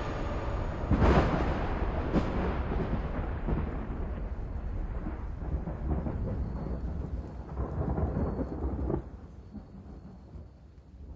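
Thunder over rain: a sharp crack about a second in and a smaller one about two seconds in, then rumbling that drops away suddenly near the end and fades.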